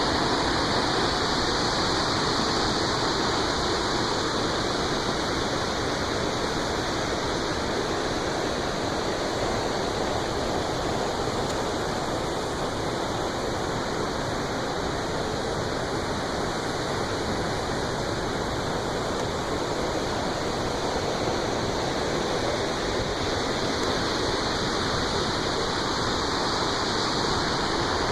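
Waterfall crashing down, a steady, even rush of falling water.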